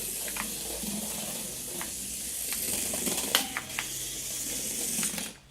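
Micro remote-control go-kart's small electric motor whirring steadily as it drives and turns, with a few light clicks.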